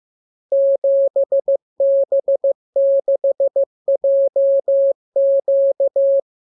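Morse code sent as a clean single-pitched beep, keyed in dots and dashes: five groups of characters, each about a second long, with short pauses between them.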